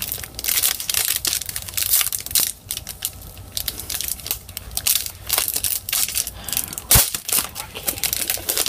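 Foil wrapper of a hockey card pack being torn open and crinkled in the hands: a dense, irregular crackle, with one sharp click about seven seconds in.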